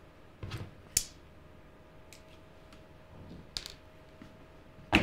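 A few light clicks and taps from handling soldering gear on the bench, the sharpest about a second in, over a faint steady tone.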